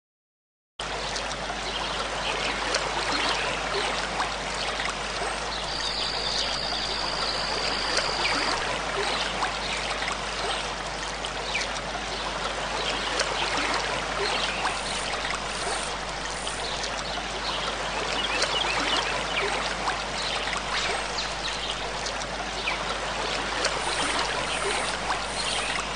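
Running water trickling and babbling like a small stream, a steady wash full of little splashes that starts abruptly after about a second of silence. A thin high whistle sounds over it for about three seconds, about six seconds in.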